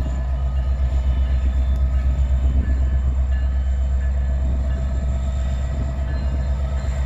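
Amtrak diesel locomotive running while standing still: a steady low engine rumble.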